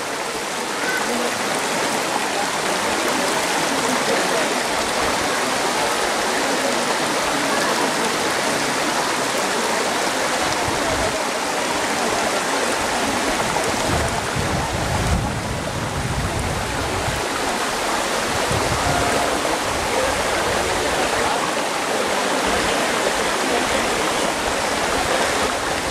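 Steady rush of flowing water, like a stream or small waterfall, with some low rumbling in the middle.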